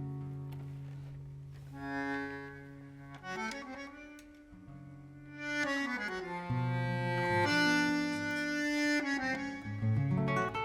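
Live tango music led by an accordion-type squeezebox holding chords. The chords fade down in the first half, swell back up about six seconds in, and guitar strums come back in near the end.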